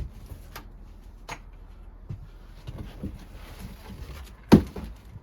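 Handling noises as unboxed items are moved about: light clicks and rustles, with one sharp knock about four and a half seconds in.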